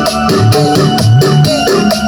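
Loud keyboard-led music with a steady beat and heavy bass notes, played through a large sound system during a sound check.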